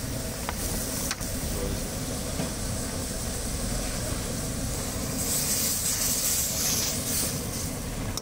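Chilli, soy and vinegar sauce boiling hard in an iron wok over a gas burner: a steady low rumble with a bubbling hiss that grows brighter about five seconds in.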